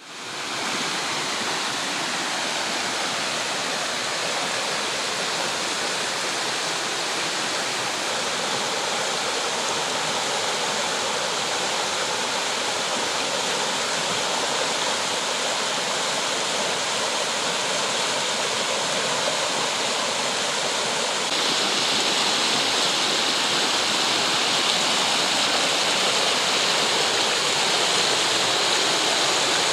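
A small rocky brook rushing over its rapids: a steady, even rush of water that gets louder and brighter about two-thirds of the way through.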